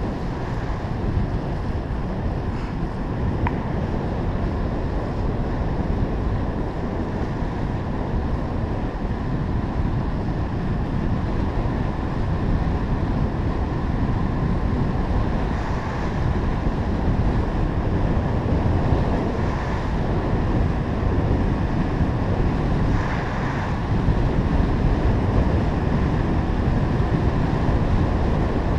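Wind rushing over the microphone of a fast-moving bicycle, a steady low rumble that grows a little louder near the end.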